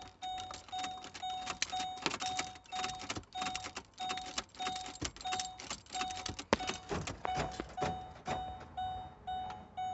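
A 2009 Ford Expedition's warning chime dings steadily about twice a second, with repeated clicks of the key being turned back and forth in the ignition switch.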